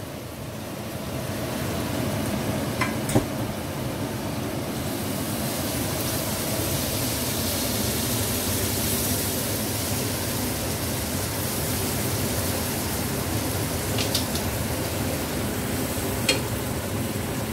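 Ground onion and ginger-garlic paste sizzling in hot oil as they are stirred with a wooden spoon, the sizzle swelling over the first couple of seconds and then holding steady. A few light knocks of the spoon against the pan, the sharpest about three seconds in.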